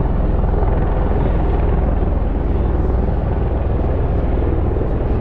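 Aircraft engine noise from a display flypast: a loud, steady low rumble.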